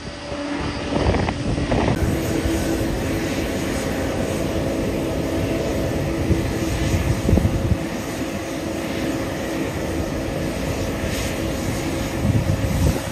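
Airliner jet engines running: a steady roar with a low, steady hum through it.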